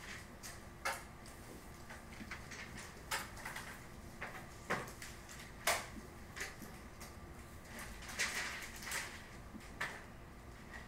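Faint, irregular taps and scratches of a stylus writing by hand on a tablet, with a few sharp clicks as the pen tip strikes the surface, over a low steady hum.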